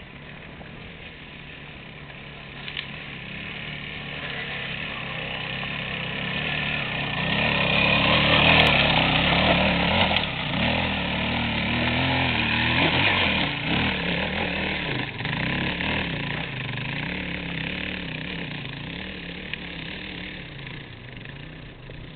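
Dirt bike engine revving during a climb up a rocky slope. It grows louder to a peak about a third of the way in, then its revs rise and fall repeatedly and it fades toward the end.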